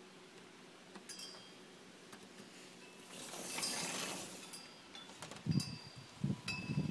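Wind chimes tinkling now and then, sharp metallic strikes that ring on in high tones, with a rush of noise in the middle. Low rumbling bursts near the end are the loudest part.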